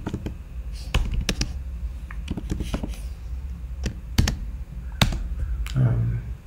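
Keystrokes on a computer keyboard: scattered, irregular clicks with short pauses between them as a line of code is typed.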